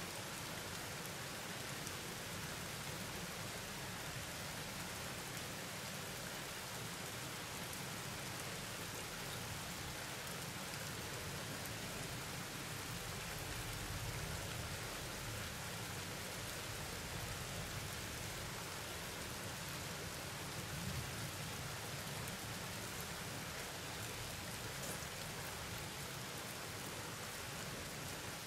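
Steady rain falling during a thunderstorm, an even hiss that holds at one level throughout.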